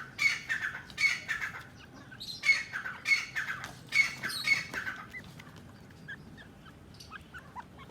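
Grey francolin calling: loud, harsh notes repeated in quick succession, which give way to fainter scattered chirps about five seconds in.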